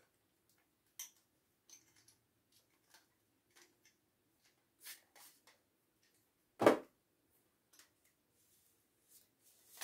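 Scattered light clicks and taps from a ring light's tripod stand being handled and adjusted, with one sharp knock about two-thirds of the way through.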